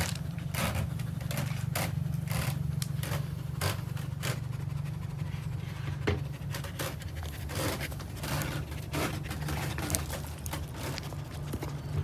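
Mother dog panting in quick, uneven breaths, over a steady low hum.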